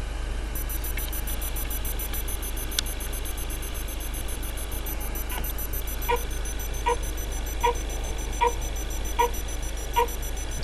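Loc8tor Lite tracker's piezo buzzer giving short, evenly spaced beeps, about one every 0.8 seconds, beginning about halfway through. The buzzer's signal is what the Arduino reads to judge how close the radio tag is.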